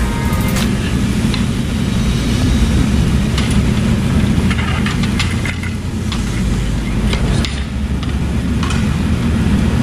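A steady low rumble with scattered light clinks of metal chopsticks and spoons against metal bowls.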